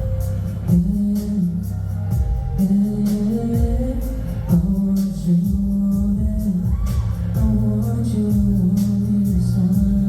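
Live band music with singing over a steady drum beat and heavy bass, heard from the audience.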